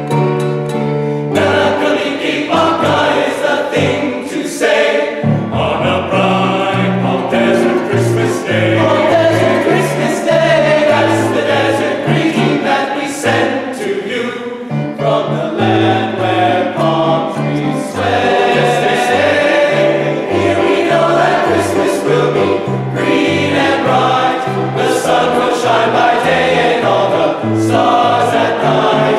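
Men's choir singing in parts, the bass voices moving on a low line of notes in a steady rhythm beneath the upper parts.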